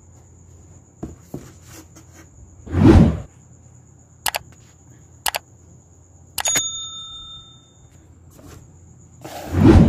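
Subscribe-button animation sound effects: a whoosh, a few mouse clicks, a click with a short bell ding about two thirds of the way in, and a second whoosh near the end.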